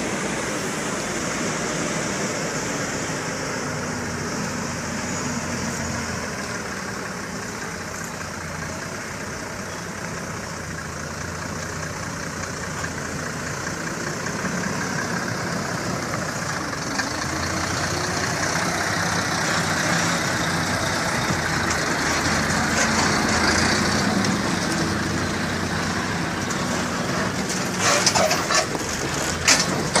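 Heavy diesel logging truck loaded with sawn timber, its engine running steadily as it drives slowly along a rough dirt road, getting louder as it comes close. Near the end a quick run of knocks and rattles sounds as the loaded truck jolts over the track.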